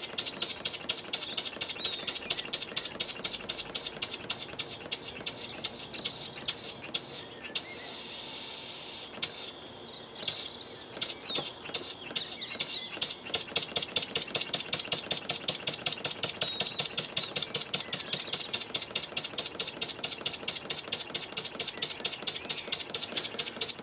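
Wig-Wag model engine with a lightweight aluminium flywheel, loaded by a belt-driven Baker fan, running with a fast, even beat of sharp exhaust puffs, about three to four a second. About eight seconds in it slows almost to a stall for a few seconds, then picks up its quick beat again. The light flywheel keeps it from running slowly.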